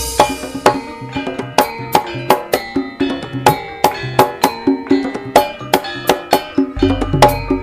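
Lively Javanese karawitan gamelan music: sharp drum strokes in a quick, even rhythm over ringing metallic gamelan tones, with heavy bass coming in near the end.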